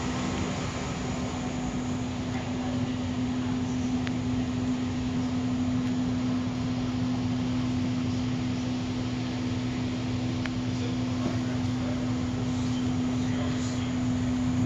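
Steady hum inside a stationary Siemens S70 light rail car, a constant low tone over an even airy noise, like the car's ventilation and onboard equipment running.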